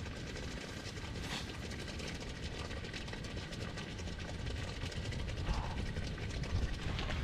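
Strong, gusty mountain wind against a tent: a steady low rumble with hiss, growing a little louder in the last two seconds.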